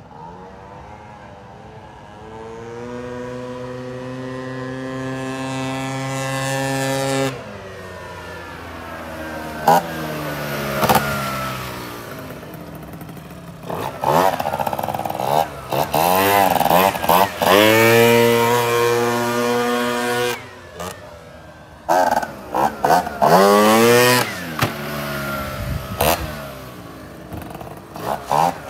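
Adly Silver Fox two-stroke scooter with a 70cc big-bore kit, ridden and revved hard. Its buzzing engine note climbs steadily in pitch over the first several seconds. Later come repeated revs that sweep up and down, with a few sharp knocks, broken by abrupt cuts.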